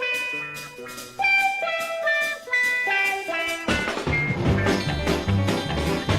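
Instrumental bluegrass-style recording. A single plucked-string melody plays alone, note by note, and about three and a half seconds in the full band comes in with bass and rhythm underneath.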